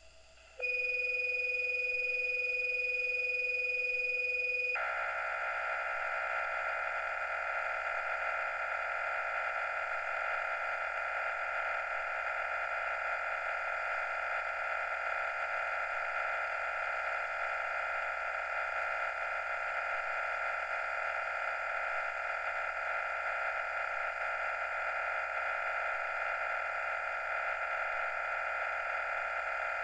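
MT63-2K digital data signal received over the radio: about half a second in, a low and a high steady start tone sound together for about four seconds. They then give way to a dense, steady hiss of many tones carrying the ICS-213 message data.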